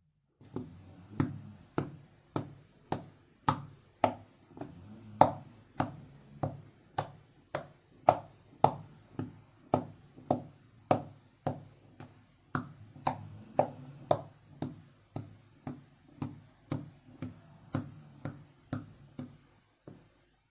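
Homemade glue-and-powder slime being pressed and poked by hand, giving sharp, even clicks and pops about twice a second over a low steady hum.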